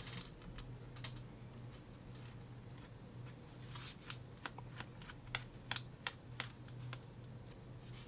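Small T5 Torx screwdriver turning a screw out of a laptop's plastic bottom cover: light, irregular clicks and scratches of the bit and screw, with fingers shifting on the panel, over a faint steady low hum.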